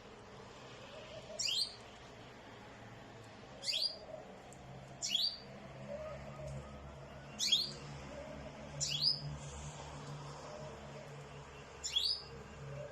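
A bird chirping repeatedly: six short, sharp calls, each sweeping quickly downward in pitch, one every second or two, over a faint low hum.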